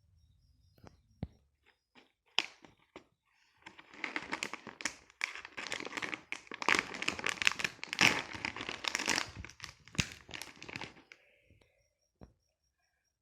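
Plastic snack packet crinkling as it is handled and torn open: a few scattered crackles at first, then dense crinkling for about seven seconds.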